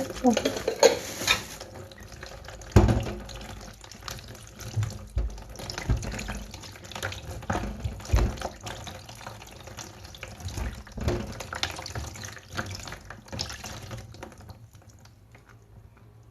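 Kitchen tap running into a sink while tomatoes are rinsed by hand, with splashing and irregular knocks against the sink. The running water stops near the end.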